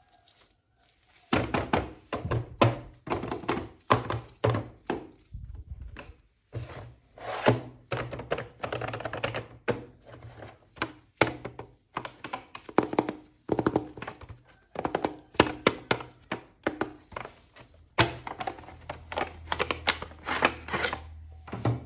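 Irregular run of knocks, clicks and clatter from a plastic action figure and its packaging being handled and unpacked.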